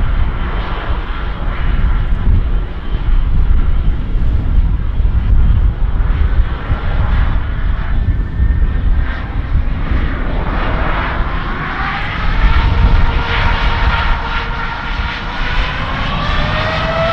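Boeing 777-200ER's GE90-94B turbofan engines running with a deep rumble. About ten seconds in they spool up, with a whine that rises steadily in pitch as take-off thrust builds.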